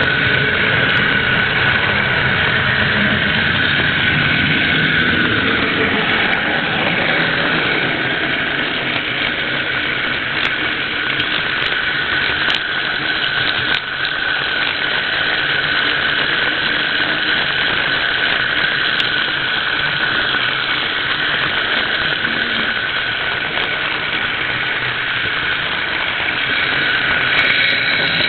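Model train running on its track, heard from a camera riding aboard it: a steady high whine from the drive over continuous running noise.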